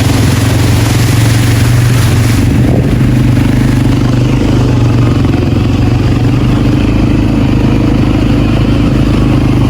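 ATV engine running steadily under way, a loud, even drone that holds the same pitch throughout.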